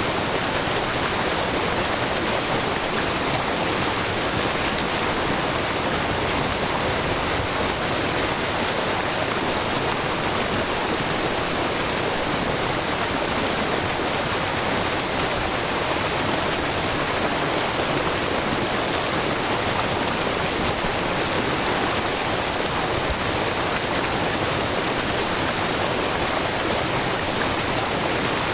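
Shiraito Falls, a wide, low waterfall where spring water pours over a rock face in many thin streams, splashing in a steady, unbroken rush.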